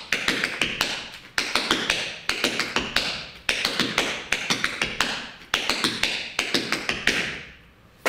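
Metal taps of tap shoes striking a hard studio floor, dancing the cross-the-buckle step: quick clusters of sharp taps about once a second in a repeating rhythm, stopping about a second before the end.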